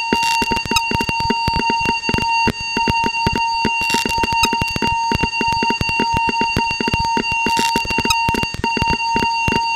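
Electronic sound-collage texture: a steady, high alarm-like tone held without a break over a dense stream of rapid, irregular clicks, with short bursts of hiss about every three and a half seconds.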